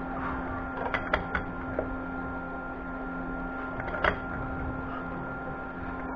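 Light clicks and taps of tools and small metal parts being handled during work on a tractor's fuel injection pump: a few in quick succession about a second in and a single one about four seconds in, over a steady hum.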